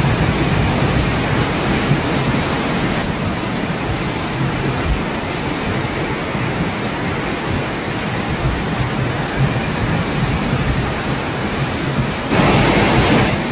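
Floodwater rushing with a steady, heavy roar that grows louder near the end.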